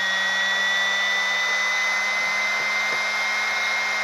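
Small cooling fan of a 60 V 20 A step-down DC-DC converter running steadily under a load of about 5 A: an even whir with a high whine that rises slightly in pitch.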